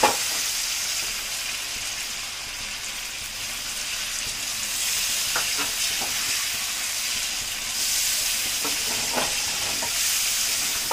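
Browned chicken sizzling in a hot pan as fennel water is added and stirred in, a steady hiss with the spoon scraping and knocking against the pan several times.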